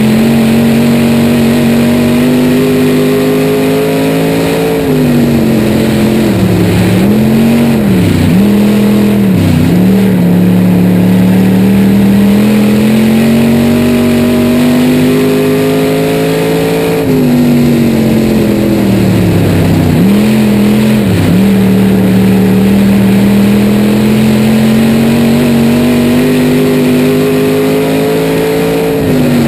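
Dirt-track race car engine heard from inside the car, running hard through two laps. The pitch climbs steadily down each straight, drops as the driver lifts for the turns, dips sharply a couple of times through each turn, then pulls back up on the throttle.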